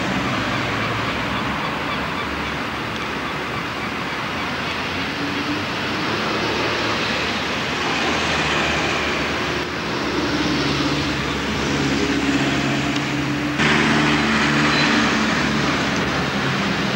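Street traffic on a camcorder's microphone: a steady wash of cars and buses with engines running. The sound changes abruptly twice, about ten and fourteen seconds in, where the footage is cut.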